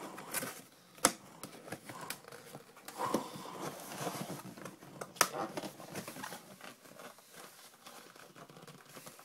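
Packaging of a hockey card box being torn and crinkled open by hand: irregular rustling with a few sharp snaps, the loudest about a second in and about five seconds in.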